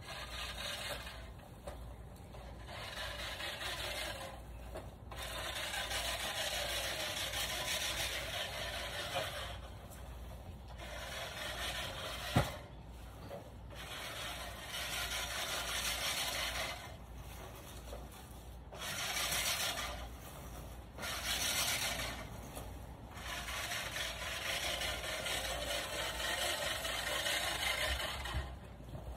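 Rustling, scraping noise that comes and goes in uneven stretches of one to three seconds, with a single sharp knock about twelve seconds in.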